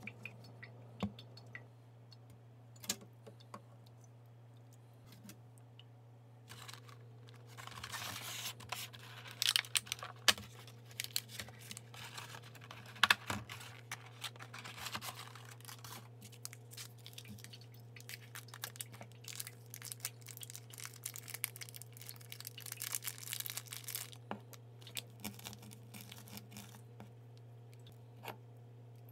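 Plastic food packaging being handled: sharp clicks, then crinkling and tearing as a clear plastic clamshell of century eggs is slid out of its cardboard box and opened, with a couple of loud snaps. Later comes crackling as a century egg's shell is cracked by rolling it on the counter. A steady low hum runs underneath.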